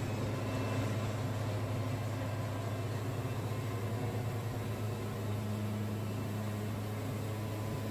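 Sawmill running with a steady, even machine drone and no change in pitch.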